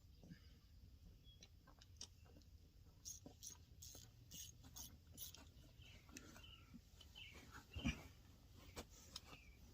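Near silence: faint bird chirps with scattered light clicks and clinks of hand tools, and a single knock about eight seconds in.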